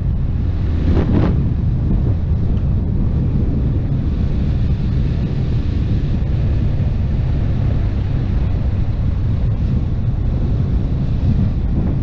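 AKT RX1 motorcycle riding steadily on a dirt road: heavy wind buffeting on the microphone over the low drone of the engine, with a stronger gust about a second in.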